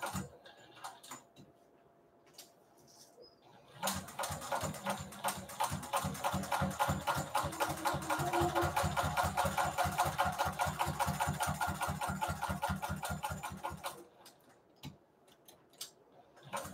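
Juki sewing machine stitching through fabric at a rapid, even rhythm. It starts about four seconds in, runs for about ten seconds and stops, with a few light clicks in the quiet stretches before and after.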